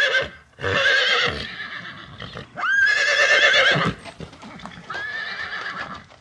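Horse whinnying again and again, each neigh a high call about a second long with a shaking, wavering pitch; the last one, about five seconds in, is fainter.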